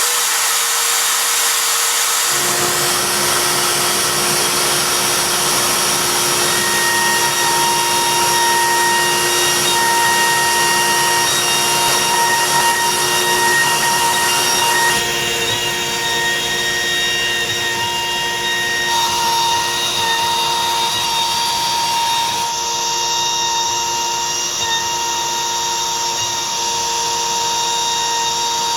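The router spindle of a Longmill MK2 CNC runs at speed while its half-inch bowl bit cuts the rough pass of a bowl pocket into a wood blank, with a dust collector running. It is a steady, loud whine with several held tones over a rushing noise. The sound fills out about two seconds in and shifts in tone twice more as the cutter moves through the wood.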